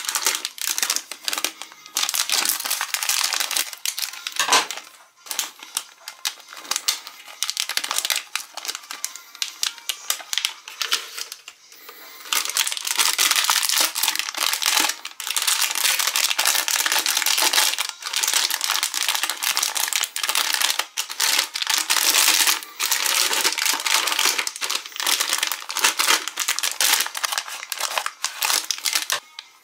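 Crinkly plastic cookie wrappers being handled and torn open. The crackling is dense and choppy at first, then near-continuous from about twelve seconds in.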